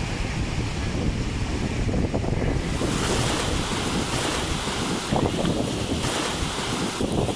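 Shallow surf breaking and washing in over the shoreline, with wind buffeting the microphone. The hiss of the rushing water grows louder about three seconds in.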